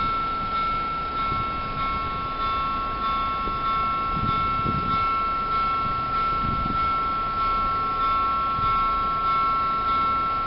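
Electronic warning bell of a railway level crossing, ringing in evenly repeated dings.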